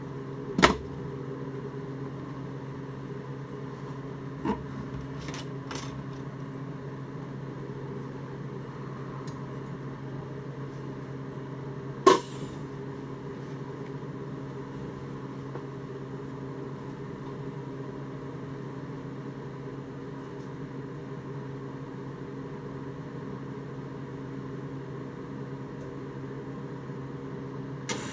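A Miller Econotig TIG welder switched on and humming steadily in DC-negative mode, with a few sharp knocks, the loudest about half a second in and about twelve seconds in. A short crackle comes at the very end as the arc strikes.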